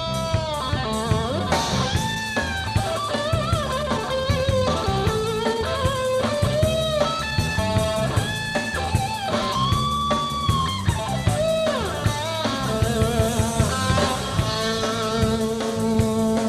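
Rock band playing an instrumental break: a lead electric guitar plays held, bent notes with vibrato over drum kit and bass, with a quick downward slide about two thirds of the way through.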